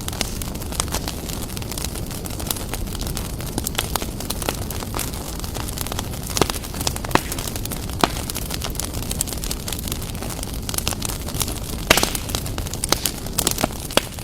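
Campfire sound effect: wood burning with a steady low rumble and irregular sharp crackles and pops, the louder pops about six, seven, eight and twelve seconds in.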